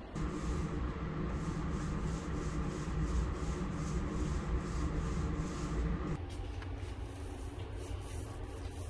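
Mini paint roller rolled over wooden kitchen cabinet frames in quick back-and-forth strokes, about two a second. A steady low hum sits under it until about six seconds in.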